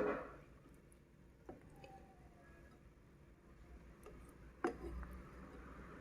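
A quiet background with two sharp clicks, about one and a half seconds in and again near five seconds.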